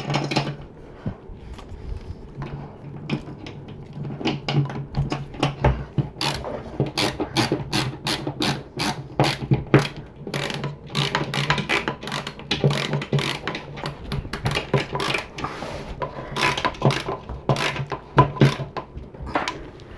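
Screwdriver turned by hand, driving small screws through a metal caster plate into the wooden base of an under-bed storage box: a long run of quick clicks, thickest through the middle and later part.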